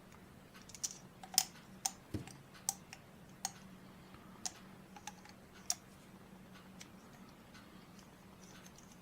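Small sharp metal clicks and taps, about eight over the first six seconds, from a tool working the tiny 1.5 mm grub screw out of a TBS 750 kV motor's shaft; a faint steady hum lies underneath.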